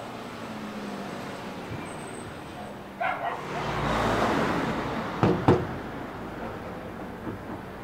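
A dog barks twice in quick succession about three seconds in, over street noise. A vehicle passes, and two sharp knocks come just after five seconds.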